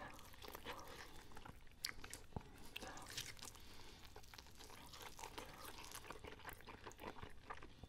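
Faint, close-up chewing of Popeyes fried chicken dipped in cheese sauce: irregular small wet clicks and crunches from the mouth and the breading.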